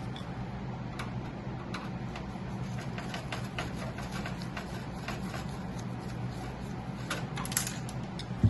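Phillips screwdriver unscrewing small screws from a PC case's expansion slot covers: light, irregular metal clicks and ticks, with a quick cluster near the end, over a steady low hum.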